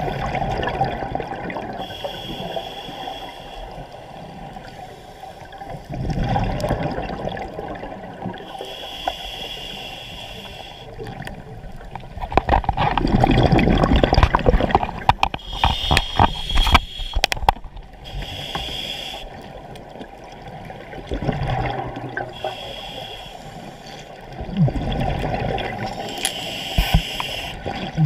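Scuba diver breathing through a regulator underwater: a short hiss with each inhalation, alternating with a louder gurgling rush of exhaled bubbles, over several breaths.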